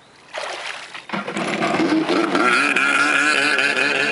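Kawasaki X2 stand-up jet ski's two-stroke engine coming up loud about a second in, its pitch wavering up and down before holding at high revs as the ski accelerates away, with the hiss of water spray.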